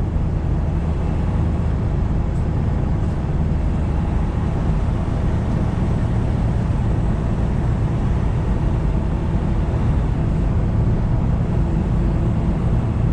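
Semi truck's diesel engine running steadily on the move, with tyre and road noise.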